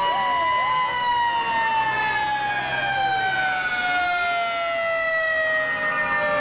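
Several fire truck sirens sounding together. The loudest holds one long tone that slowly falls in pitch as it winds down, while shorter rising and falling wails overlap it.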